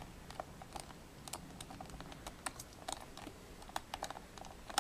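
Phillips screwdriver driving a small screw into the plastic bottom cover of a netbook: a run of faint, irregular light clicks and ticks as the screw is turned home.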